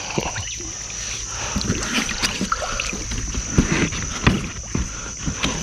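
Scattered knocks and handling noise in a small boat while a fishing longline is checked, over a steady high-pitched tone.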